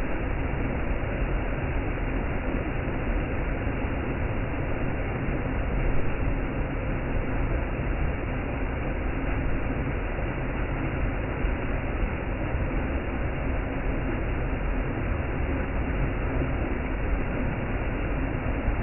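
Waterfall: a steady rush of falling water, briefly a little louder about six seconds in.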